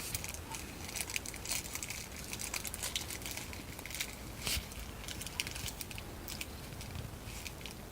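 Irregular light crinkling and clicking of door-knob screws and their packaging being handled: many small, sharp, uneven sounds.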